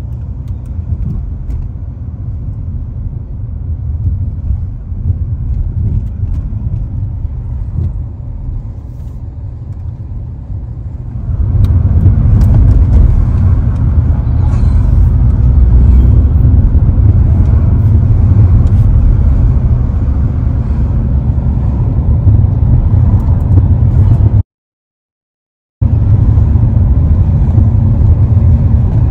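Road noise inside a moving car: a steady low rumble of engine and tyres. It gets louder about a third of the way in, and near the end it cuts out completely for about a second before coming back.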